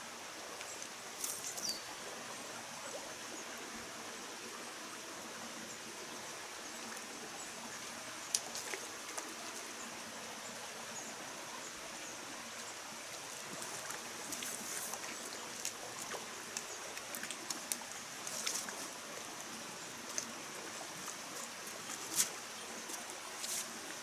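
Mountain stream running steadily, with scattered small clicks over it and one sharper click near the end.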